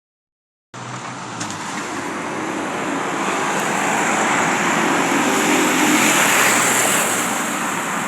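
A motor vehicle passing on a road: engine and tyre noise swelling over several seconds, loudest about six seconds in, then beginning to fade.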